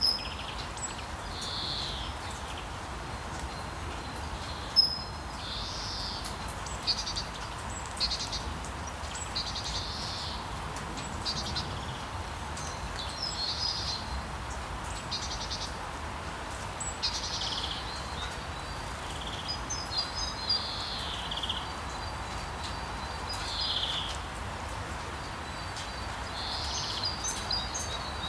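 Birds calling and chirping over a steady hiss of rain, with short chirps, quick trills and falling whistled notes coming every second or two.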